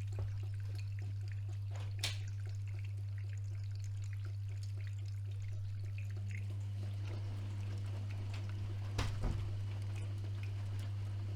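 AEG Öko-Lavamat 76730 washing machine mid-cycle: a steady low hum with water trickling and splashing inside. Two brief knocks come about two seconds in and again near nine seconds.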